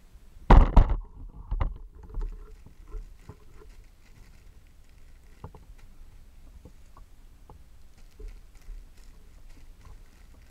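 Clear plastic bags around squishy toys crinkling and rustling as they are handled. A loud burst of crinkling comes about half a second in, with a few smaller rustles after it, then only scattered faint crackles.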